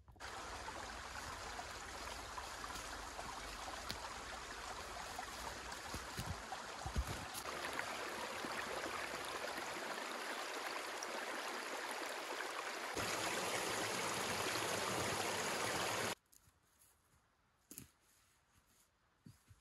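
Small rocky forest stream running over stones, a steady rushing. Its level shifts twice, then it cuts off suddenly about sixteen seconds in, leaving near quiet with a few faint ticks.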